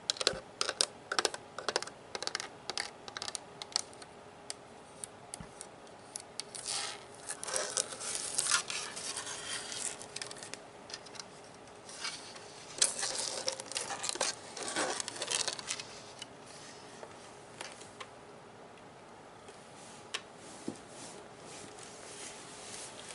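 Fingertips and nails tapping and scratching on the plastic body of a Nerf gun. Quick clicking taps come for the first few seconds, then two stretches of scratching, then only a few light taps near the end.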